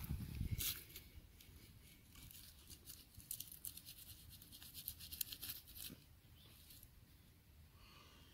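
Faint crackling and scraping as a pocket knife cuts a wild mushroom at its base among dry grass, a run of small clicks that stops about six seconds in.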